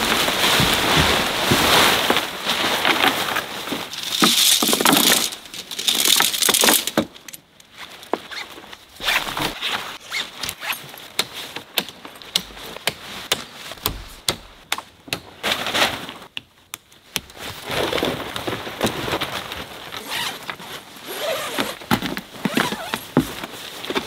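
Hilleberg Allak 3 tent being pitched: nylon tent fabric rustling, heaviest in the first several seconds and again near the end, with scattered clicks and knocks in between.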